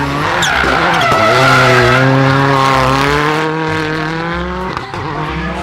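Racing car engine running at high revs. The steady engine note dips about a second in, holds, and shifts again near the end.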